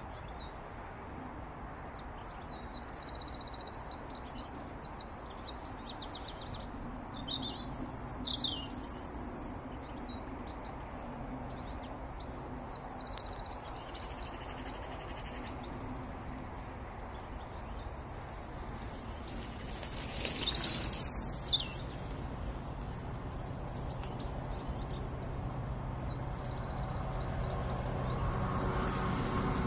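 Small birds singing and calling, several overlapping chirps and trills, over a steady low background rumble. Near the end a low rumble builds as a train approaches.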